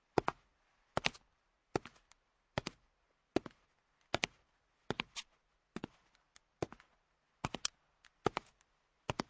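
Slow footsteps at an even pace of a little over one step a second. Each step is a sharp, quick double click.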